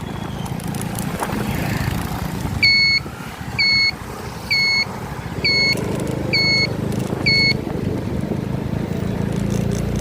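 An engine running steadily, with six identical short high-pitched beeps about a second apart in the middle.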